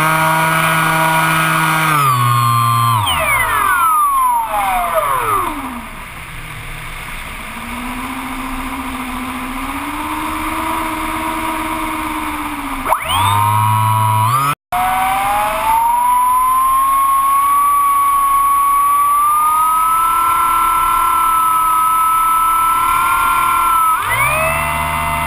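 Electric motor and propeller of a Bixler RC plane whining, heard from on board. The pitch falls away as the throttle is pulled back a couple of seconds in, picks up again around the middle, holds as a steady whine that slowly rises, and jumps up again near the end.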